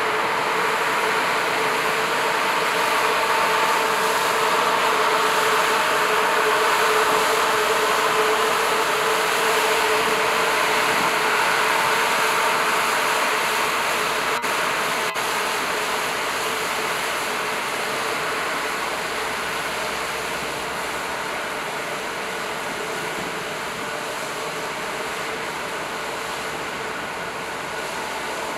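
Brødrene AA 42m catamaran ferry's MTU diesel engines and Kamewa waterjets running under load as it manoeuvres off the berth, a steady hum over rushing water. It grows slowly fainter in the second half as the ferry moves away.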